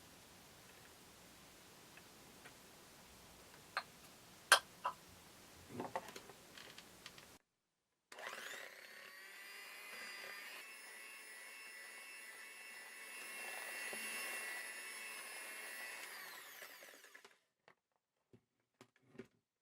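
A few sharp knocks, then, after a cut, an electric mixer motor running steadily with a whine for about nine seconds, growing slightly louder midway before stopping abruptly.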